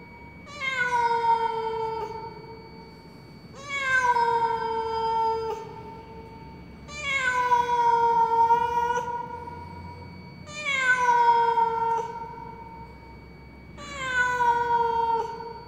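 Black-and-white domestic cat giving five long, loud meows about every three and a half seconds, each dipping slightly in pitch at the start and then held steady. Mournful crying of a cat that seems to be lost.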